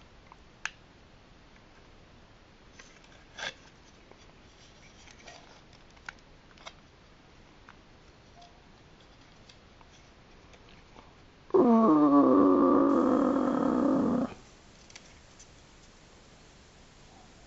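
Faint clicks of a small plastic toy starfighter being handled. Then a loud pitched, wavering sound lasting about three seconds that starts and stops abruptly.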